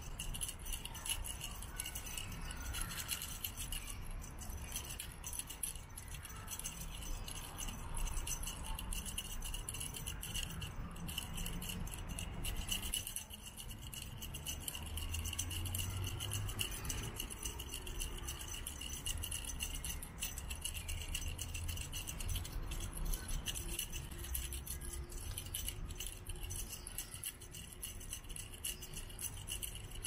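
Continuous rapid rattling buzz of an insect chorus, steady and high-pitched, over a low rumble.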